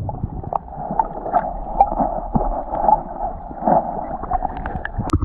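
Muffled underwater rushing picked up by a submerged action camera inside its waterproof housing, scattered with small clicks and knocks and one sharp knock near the end.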